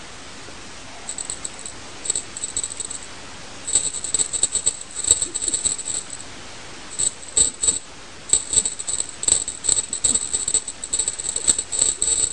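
Small bell on a cat wand toy jingling in quick on-off bursts as it is shaken, livelier in the second half.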